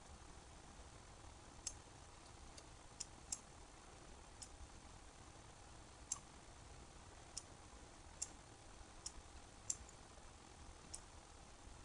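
Computer mouse button clicking: about ten separate sharp clicks at uneven intervals, faint over a low steady hiss.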